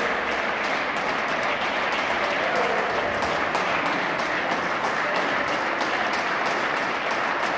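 Steady applause from many people clapping, with a few voices mixed in.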